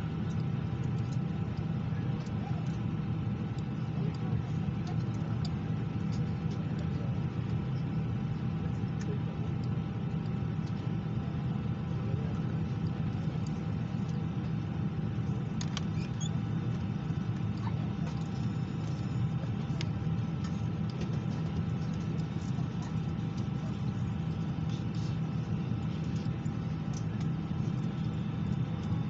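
Steady low hum inside an Airbus A319 passenger cabin, with a few faint steady whines above it and scattered small clicks and rattles.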